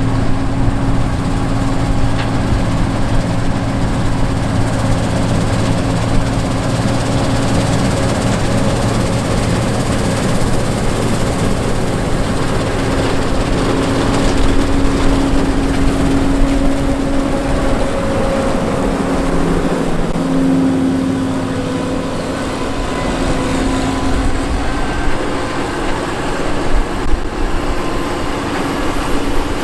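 John Deere 9510 combine's 240 hp diesel engine and threshing machinery running steadily while harvesting wheat. Its pitch shifts slightly about two-thirds of the way through.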